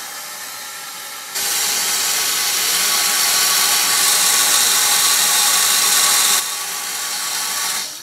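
Water rushing through the partly opened cold-water inlet ball valve into the bottom of a drained water heater tank, a steady hiss as the inflow stirs up settled sediment. It gets louder about a second in, eases a little near the end, then cuts off suddenly as the valve is shut.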